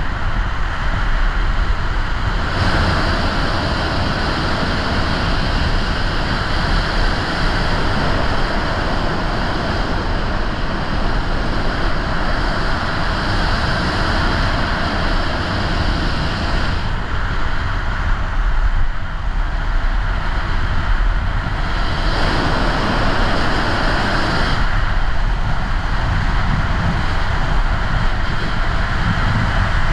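Wind rushing over the microphone and lugeboard wheels rolling on asphalt during a fast downhill run: a loud, steady rush whose tone brightens and dulls a few times.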